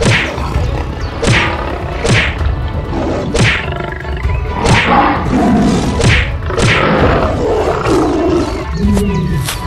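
Cartoon fight sound effects over background music: sharp whip-crack or blade strikes about once a second, with a big cat's roars and growls in between.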